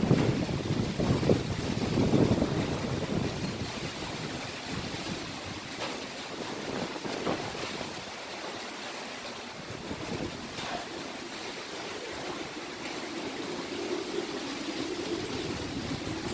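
Typhoon-force wind gusting hard for the first few seconds, then easing. A low howl builds near the end.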